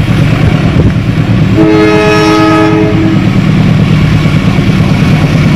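An approaching diesel locomotive sounds its horn once, a steady multi-note blast of about a second and a half starting about one and a half seconds in, over a steady low rumble.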